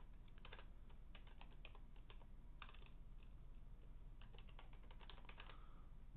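Faint keystrokes on a computer keyboard, in short uneven runs with pauses between, as a username and password are typed at a login prompt.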